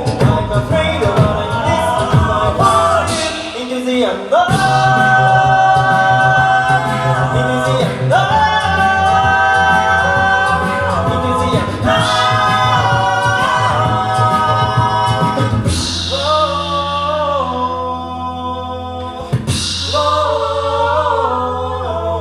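An a cappella vocal group singing in close harmony over a sung bass line, with short percussive sounds under the first few seconds, then long held chords.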